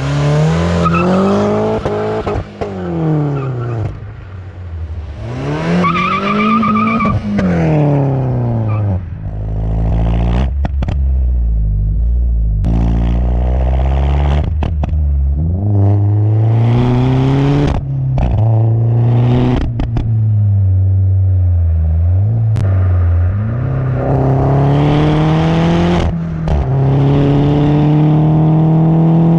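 Peugeot 208 GTi's 1.6-litre turbocharged four-cylinder through a loud exhaust. It revs up and down twice, then accelerates through several gears, with the pitch dropping suddenly and a short sharp crack at each shift, and ends with a long rising pull.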